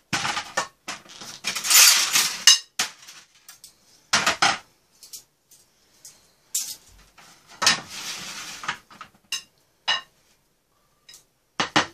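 Dishes and utensils clattering on a metal tray: a frying pan being moved and scraped on the tray, with metal utensils clinking, in several separate bursts and sharp clicks.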